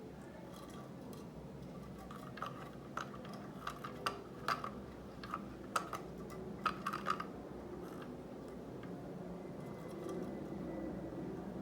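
Irregular sharp clicks and taps, about a dozen in a cluster a few seconds in, as a green-cheeked conure's beak works at a foraging toy to get a snack out.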